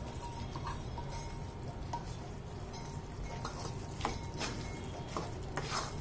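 A metal spatula scraping and clinking against a steel kadhai as jaggery pieces are stirred into hot ghee-roasted wheat flour. The clicks come mostly in the second half, under low background music.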